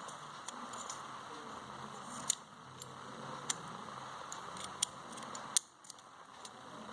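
Freshly oiled mechanism of a USHA sewing machine being turned by hand: a faint steady whirr with a few light clicks, stopping after a click about five and a half seconds in. It now runs smooth after the jam was cleared.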